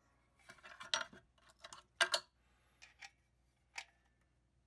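Small metal parts of a caulking gun clinking as it is reassembled, a washer being fitted onto its metal plunger rod: several separate light clinks, the loudest about two seconds in.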